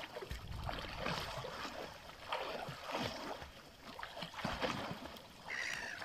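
Lake water splashing in irregular bursts from a swimmer's arm strokes and kicks.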